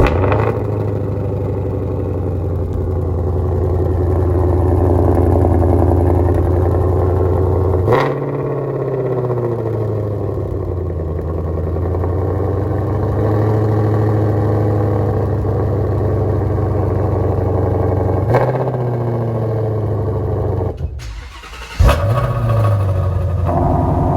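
2020 Ford Mustang Shelby GT500's supercharged 5.2-litre V8, exhaust in track mode, starting with a sharp bark and settling into a loud, steady idle whose pitch shifts down twice. About three seconds before the end it drops away briefly, then fires again with another bark and idles on.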